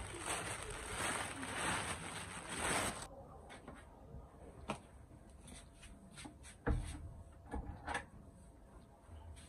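Rustling of a straw broom and a plastic rubbish bag as swept dirt is gathered; it cuts off suddenly about three seconds in. After that come a few scattered knocks and thuds in a small room, one about two-thirds of the way through louder than the rest.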